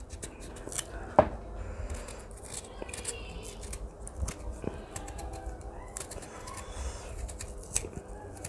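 Knife cutting and peeling the skin off a firm, unripe mango: a run of small crisp clicks and scrapes, with one sharper knock about a second in.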